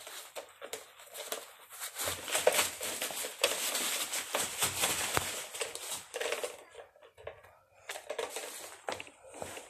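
Rustling and crinkling handling noise with many small clicks, the sound of a handheld camera being carried while someone moves about to fetch a toy, with quieter spells about seven and nine seconds in.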